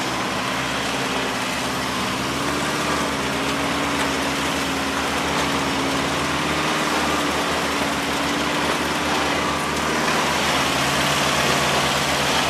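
Off-road vehicle engine running steadily at low revs, an even hum with no sharp changes in pitch or level.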